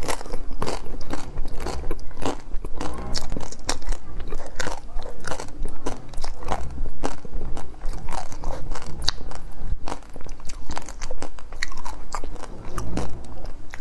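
Biting and crunching through the hard chocolate shell of an ice cream bar, a dense run of irregular sharp cracks and crackles mixed with chewing and wet mouth sounds, close to a clip-on microphone.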